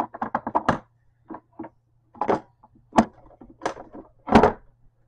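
A quick run of taps, then several separate knocks and clacks, the loudest near the end: makeup products and tools being handled and set down on a hard surface.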